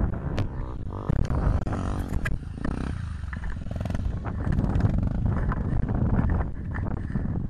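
Dirt bike engine running across the valley, heard under wind buffeting the microphone, with scattered short knocks.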